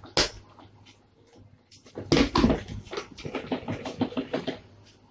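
A plastic clack as the hand-cranked top of a Tupperware Speedy Chef mixing pitcher is set on. Then, about two seconds in, a run of rapid plastic clattering for two to three seconds as the crank is turned to whisk cake batter.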